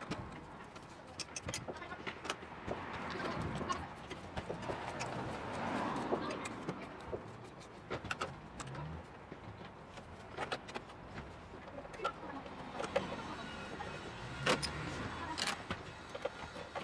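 Scattered clicks, knocks and light rattles of hands and tools on parts in an open engine bay, with no engine running.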